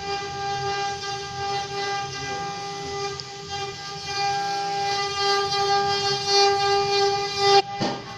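Electric wood lathe running at constant speed with a steady, high-pitched whine as a wooden vase turns on it. The whine cuts off suddenly about seven and a half seconds in.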